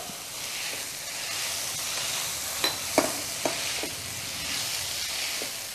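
Diced vegetables sizzling in a hot wok while a silicone spatula stirs and tosses them, with a few short clicks of the spatula against the pan around the middle.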